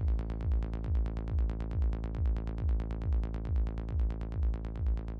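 Background electronic dance music: a steady kick-drum beat with fast ticking hi-hats over sustained synth chords.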